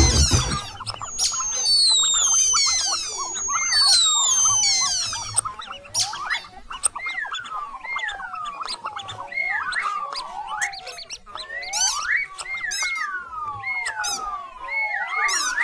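Cartoon mouse squeak sound effects: first a flurry of high, quick squeaks falling in pitch, then from about six seconds in, repeated overlapping squeals that slide down in pitch, several at a time.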